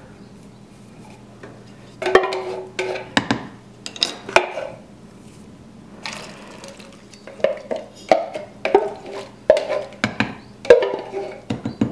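Drained canned hominy poured from a metal can into a stainless steel stockpot of broth, the kernels sliding out into the liquid, with clanks of the can against the pot and then a wooden spoon stirring and knocking in the pot. The knocks come in a cluster about two seconds in and again through the second half, over a faint steady low hum.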